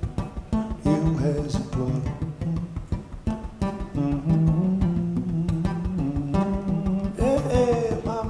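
Solo acoustic guitar playing an instrumental passage between verses: a steady, rhythmic picked pattern of notes over a repeating bass line.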